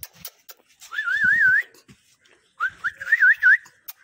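A person whistling to call a puppy: two short warbling whistle phrases about a second apart, each a quick run of up-and-down glides that ends on a rising note, with a few short clicks between them.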